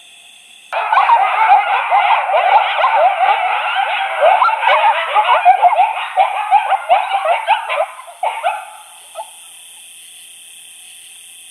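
Recorded coyote group howl, a chorus of yips, barks and howls, played through a FoxPro electronic caller as a locating call to draw answering howls. It starts abruptly about a second in and cuts off after about eight seconds.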